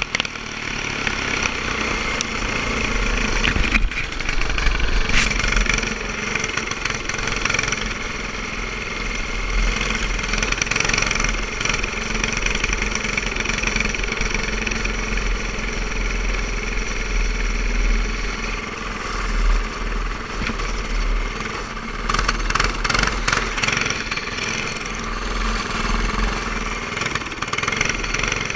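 Go-kart engine running at racing speed, its level rising and falling through the laps, with a heavy low wind rumble on the helmet-mounted microphone.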